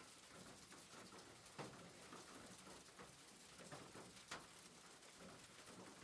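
Faint rain pattering on a roof, a steady hiss of many small drop ticks, with two sharper drop hits about one and a half seconds and four seconds in.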